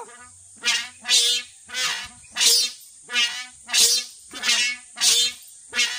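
Kite hummer made of a sack-raffia strip stretched across a bamboo bow, buzzing loudly in repeated honk-like pulses, about nine of them, one roughly every two-thirds of a second.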